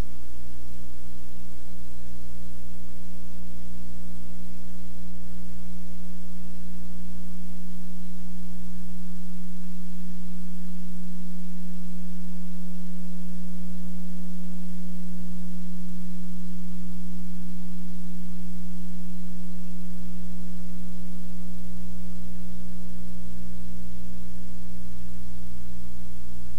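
Steady electrical hum that never changes: one strong low tone with fainter higher tones above it and a low drone underneath.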